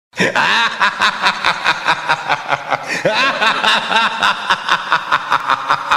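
A laughter sound effect, a run of rapid 'ha-ha' pulses about five a second, starting suddenly.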